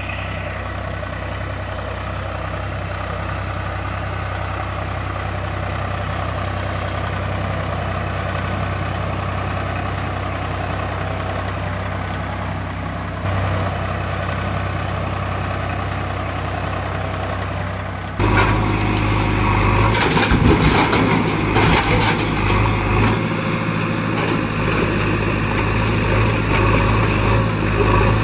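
Engine idling with a steady, evenly pulsing low throb. About eighteen seconds in it cuts to a louder, rougher engine sound with clattering.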